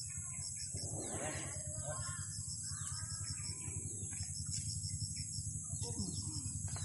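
Rural outdoor ambience: a steady pulsing insect chorus with birds calling and faint voices of people. A constant low rumble runs underneath.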